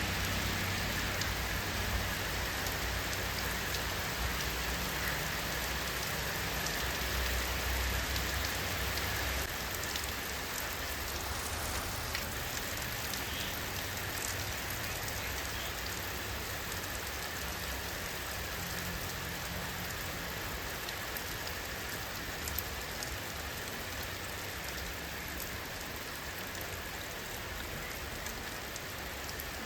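Steady rainfall, an even hiss of drops on surfaces, with a low rumble underneath that eases about ten seconds in.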